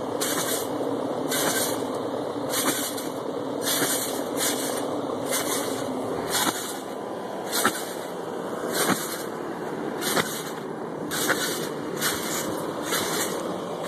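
A backyard trampoline being bounced on steadily. A burst of hissing spring and mat noise comes with each bounce, about once every second and a quarter, and some landings give a sharp click.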